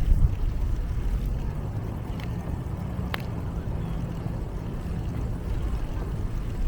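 Wind buffeting the microphone: a steady low rumble, with a few faint short clicks over it.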